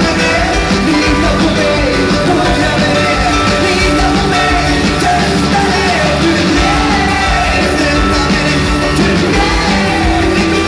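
Live rock band playing while a male lead singer belts out a song in Swedish, his voice strained close to a yell.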